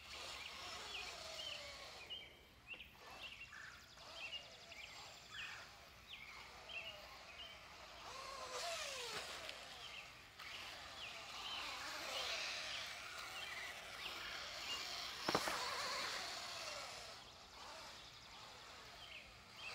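Team Associated B5M electric RC buggy running around the dirt track out of sight. Its motor whine rises and falls in pitch as it speeds up and slows. There is a sharp knock about fifteen seconds in, and short high chirps repeat through the first half.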